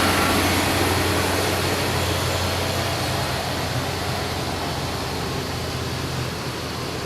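A bus driving away, its low engine drone and road noise fading steadily.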